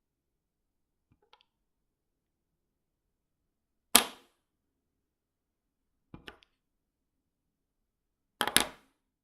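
Highlighter marker tip making short, separate scratching strokes on paper, with silence between them: a faint stroke about a second in, a loud quick one at about four seconds, a faint double stroke at about six seconds, and a loud stroke of two or three quick parts near the end.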